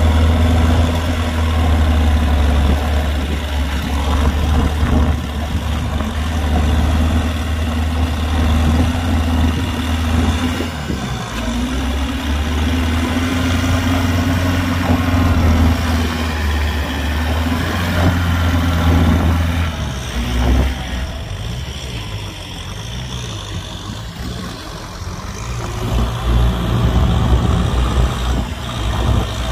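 Kubota tractor's diesel engine running steadily; its note drops and quietens about two-thirds of the way through, then picks up again near the end.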